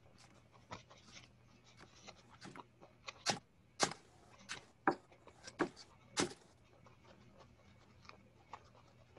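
Felting needle stabbing black wool roving down into a foam pad: irregular short, sharp ticks, the loudest bunched in the middle.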